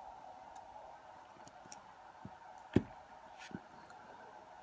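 A few light clicks of small metal lock parts being handled, the sharpest a little under three seconds in and another about half a second later, over a faint steady hum.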